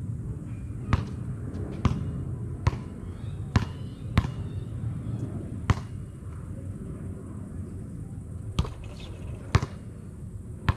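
A basketball bouncing on a concrete court as it is dribbled. There are about eight sharp bounces, unevenly spaced at roughly one a second.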